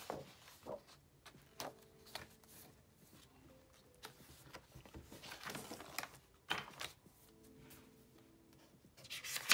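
Paper pages of a spiral-bound sketchbook being turned by hand: a series of short rustles and flaps, with a longer stretch of rustling about five seconds in and again near the end.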